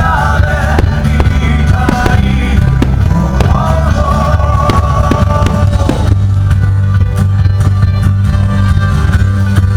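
Rock music with guitar and bass and a melody line that bends in pitch during the first six seconds, then a held bass note under a quieter part.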